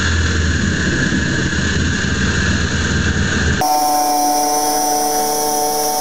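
Jigsaw cutting thin 304 stainless steel sheet: a steady, loud buzz of the blade chattering through the metal. A little over three and a half seconds in, the sound jumps abruptly to a higher, steady whine with several squealing tones as the cut is played at 3.5 times speed.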